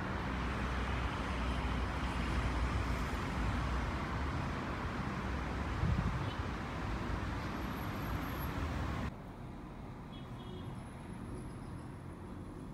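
Street traffic noise, a steady rumble and hiss, that cuts off abruptly about nine seconds in, giving way to a much quieter room ambience.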